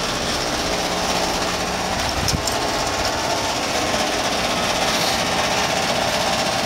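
Broan 3-ton heat pump's outdoor unit running: condenser fan and Copeland scroll compressor giving a steady hum, with a rattle from something loose on the unit, and a brief click about two seconds in.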